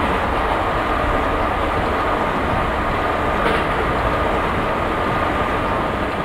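ICE high-speed train running at speed: a steady rushing rumble with a steady high whine over it.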